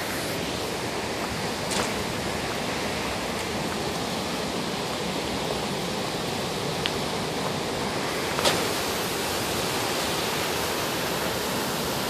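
Steady rushing of a waterfall, an even wash of falling water, with a light knock about two seconds in and another about eight seconds in.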